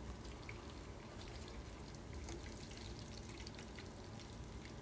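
Faint, steady crackle and hiss of hot oil in a frying pan, with many small scattered pops.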